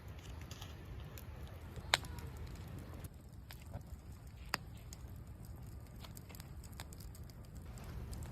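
Wood campfire crackling: scattered sharp pops, the loudest about two seconds in and another about halfway, over a low steady rumble.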